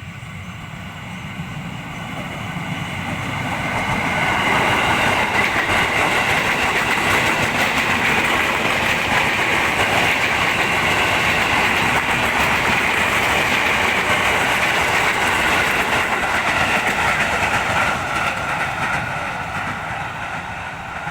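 KRL Commuter Line electric train passing, its wheels clattering on the rails. It builds over the first few seconds, stays loud and steady for most of the stretch, then fades away near the end.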